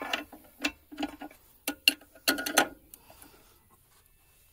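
Ratchet wrench clicking in a few short, uneven strokes with sharp metallic clinks as bolts are run down, stopping about three seconds in.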